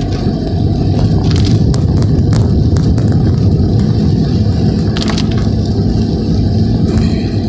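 Steady low rumble of a car driving on a wet road, heard from inside the cabin, with scattered sharp ticks of raindrops hitting the windscreen and roof at irregular moments.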